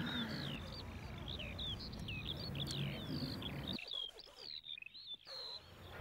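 Small birds chirping in quick succession, short high notes sliding up and down over a low outdoor background. A little under four seconds in, the background and birdsong cut off abruptly and it goes much quieter.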